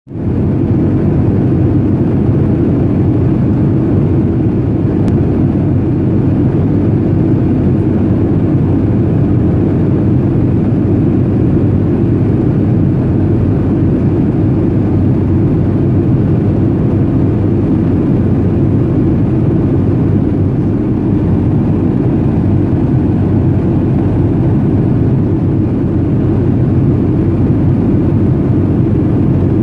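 Steady, loud low rumble inside the cabin of a Boeing 737-300 on its descent: its CFM56 jet engines and the airflow over the fuselage, heard from a window seat over the wing.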